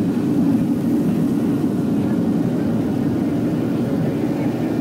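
Steady low rumble of jet engine and airflow noise inside an airliner's cabin, picked up by a phone's microphone in flight.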